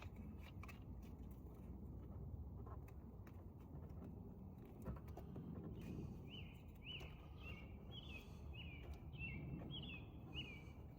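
A bird singing a quick series of short chirps, starting about halfway through, over a low outdoor rumble. A few faint clicks come in the first half.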